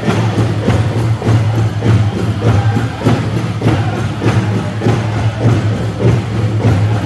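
Powwow drum group singing a chicken dance song over a steady, driving beat on the big drum.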